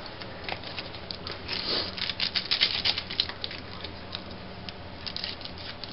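Trading cards being handled and flipped through: a run of dry rustling and flicking, busiest from about one and a half to three seconds in.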